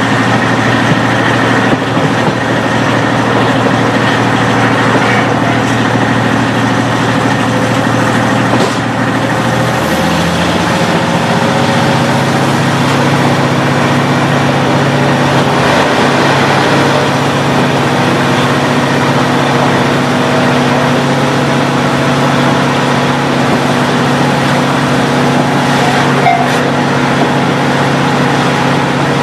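KiHa 40 diesel railcar's original DMF15HSA six-cylinder diesel engine running under the floor, heard from inside the passenger cabin. The engine note rises about ten seconds in and then holds steady.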